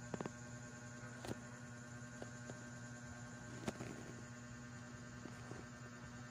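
Faint, steady electrical hum with a few soft clicks, the loudest a little past halfway.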